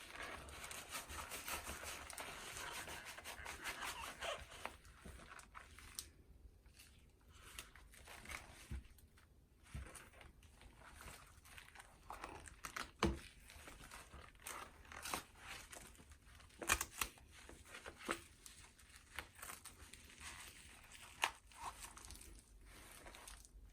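Goalkeeper gloves being handled and pulled on: a scratchy rubbing and tearing sound for the first four seconds or so, then soft scattered rustles and small clicks.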